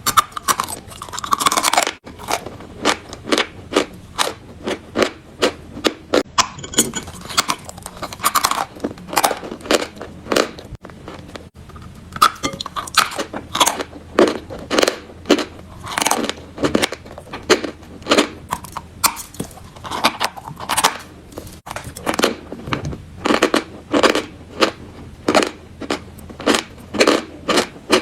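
Chalk being bitten and chewed close to the microphone: a steady run of crisp crunches, about two a second.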